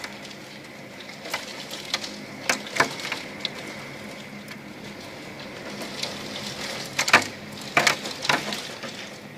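Storm wind and driving rain hissing steadily, with scattered sharp knocks and cracks from things being battered by the wind. The loudest knocks come in a cluster about three quarters of the way through.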